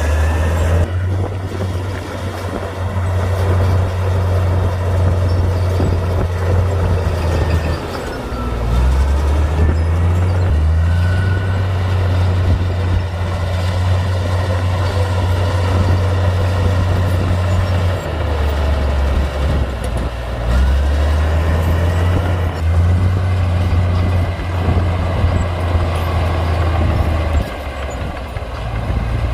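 Komatsu D58P bulldozer's diesel engine running under load while pushing dirt, its low note dropping and rising every few seconds, with a few faint high squeals.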